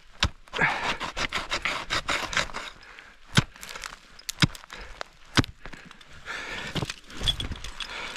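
Ice tools and crampons striking into water ice, sharp blows about one a second or slower, with scraping and crunching of ice and metal climbing gear jangling.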